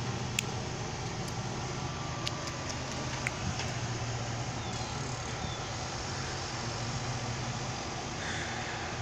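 Steady low mechanical hum in the background, with a few sharp clicks in the first few seconds as small spring-loaded bonsai leaf trimmers snip shoots.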